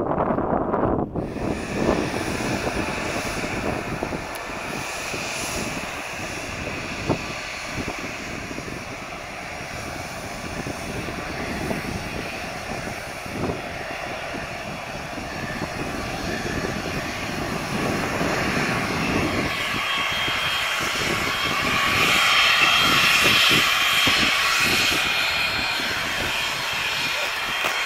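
Twin rear-mounted turbofan engines of an Embraer Legacy 600 business jet running as it taxis, a steady jet hiss with a high whine that grows louder past the middle and is loudest near the end, as the engine exhausts face the listener.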